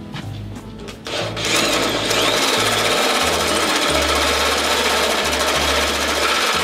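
Power tool running under load, cutting into the boat's steel wall. It starts about a second in and runs steadily with a wavering whine.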